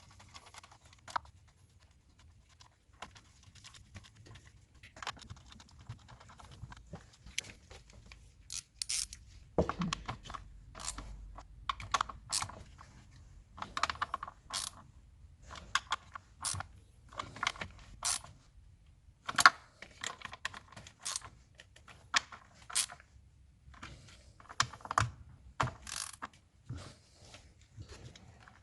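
Irregular sharp metallic clicks and clinks of hand tools, a socket wrench working on the intake manifold's bolts and nuts, some in quick runs like a ratchet turning.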